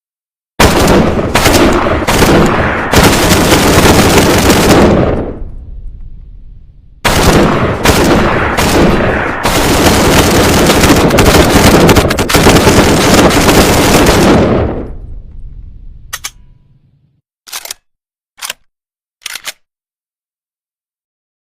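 PPSh-41 submachine gun firing on full auto: a few short bursts, then a long burst that dies away in a trailing echo. A second round of short bursts and a long burst comes about seven seconds in. Near the end come a few brief, much fainter sharp sounds.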